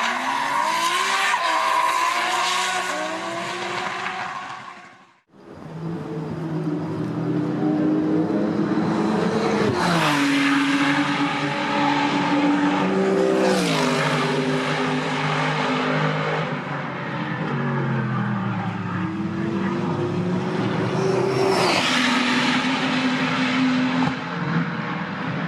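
GT race cars at full throttle on track, engine pitch climbing and then dropping sharply at each upshift, several times over. The sound cuts out briefly about five seconds in before another car is heard accelerating through the gears.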